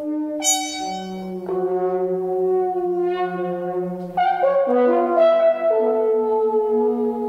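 French horns holding long, overlapping notes, several pitches sounding together and changing every second or so. A bright, edgy note enters about half a second in, and new notes come in more loudly around the middle.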